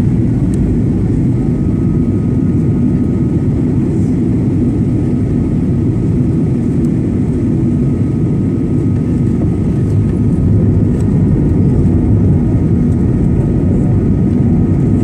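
Steady loud cabin noise inside a Boeing 737-900 on approach with its flaps extended: a deep rushing roar of engines and airflow. A faint high steady tone sits over it from about a second in, and the roar grows a little louder about ten seconds in.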